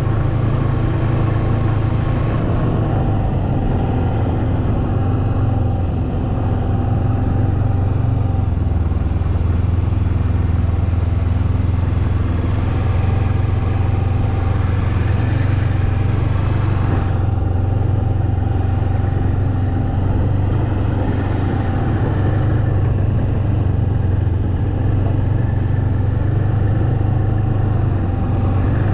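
Snowmobile engine running steadily under way, a continuous low hum with only small changes in throttle.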